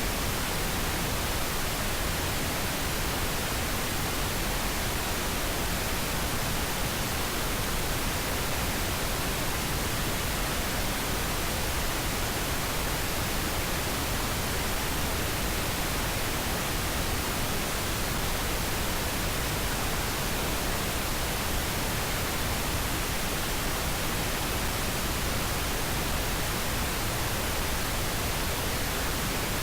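Steady pink noise: an even, unchanging hiss spread across the whole range of pitch.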